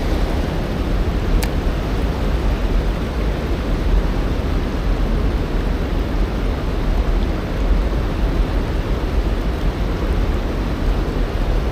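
Steady rush of river water running over the shallows, with a deep low rumble underneath.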